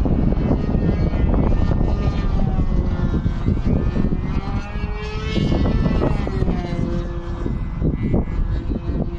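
RC aerobatic model airplane's motor and propeller whining in flight, its pitch rising and then falling around five to six seconds in as it passes. Heavy wind buffets the microphone throughout.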